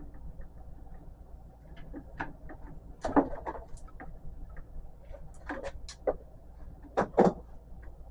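Irregular clicks and scrapes of Romex cable's plastic outer sheath being pulled off by hand, its bare ground wire clamped in a vise. The sounds come in scattered short bursts, busiest in the second half.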